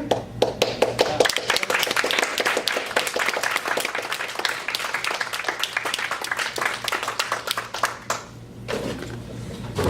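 Audience applauding, a dense run of clapping hands that stops about eight seconds in.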